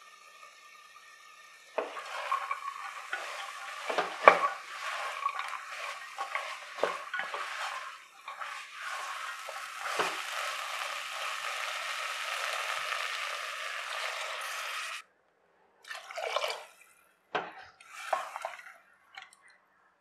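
Vegetables and peas being stirred with a wooden spatula in a pressure cooker of frying mint masala: scattered scrapes and knocks over a steady sizzle, which cuts off suddenly about fifteen seconds in. A few short splashes follow near the end as water goes into the pot.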